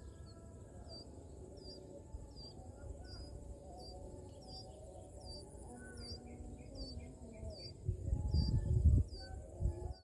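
Nestling bird's begging calls: short high chirps repeated about every half second, over a steady high insect buzz. About eight seconds in, a low rumble is the loudest sound.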